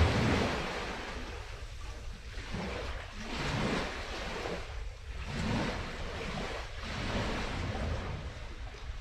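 Small waves washing onto the shore, surging and falling back about every two seconds.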